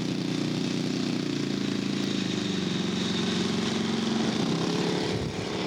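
Radio-controlled scale model airplane's small piston engine running at low, taxiing speed, its pitch shifting a little midway.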